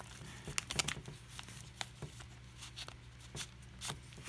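Paper rustling and crinkling in short, scattered strokes as a folded paper insert card is slid out of a small manila envelope.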